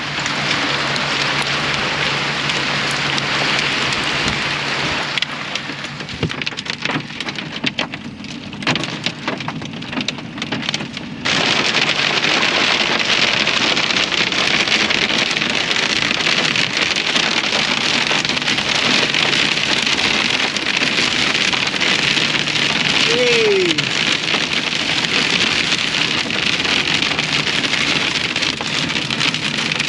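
Dime-sized hail and heavy rain pelting down in a dense, steady hiss, with separate hard ticks of hailstones where it briefly thins. About eleven seconds in it suddenly gets louder and stays that way.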